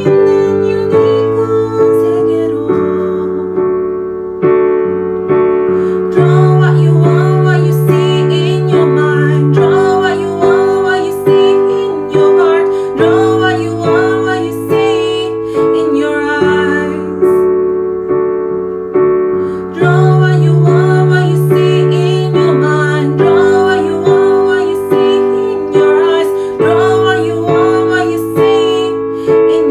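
Keyboard playing a slow children's-song accompaniment: sustained chords that change every few seconds under a steady pulse of struck notes, with a melody line above.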